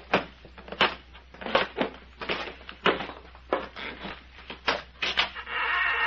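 Foley footsteps on wooden floorboards, each step a sharp knock, about one step every two-thirds of a second. Near the end a steady held tone with several pitches comes in.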